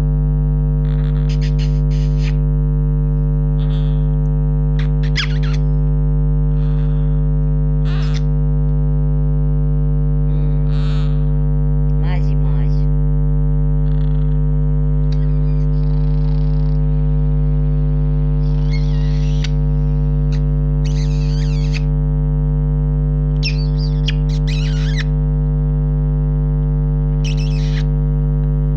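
A small pet parrot making scattered soft chirps and squeaks while being cuddled, over a loud, steady electrical hum that runs throughout.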